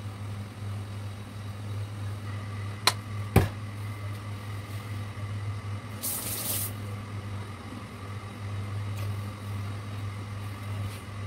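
Oil being poured into an empty steel wok on a hob over a steady low hum. Two sharp knocks come close together about three seconds in, and a short hiss follows a little past halfway.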